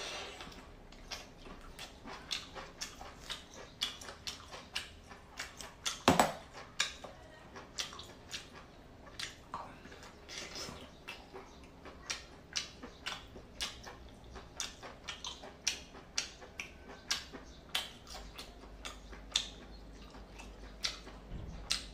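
A person chewing sea snail meat, close to the microphone: irregular wet smacks and squelches of the mouth, a few a second, with one louder smack about six seconds in.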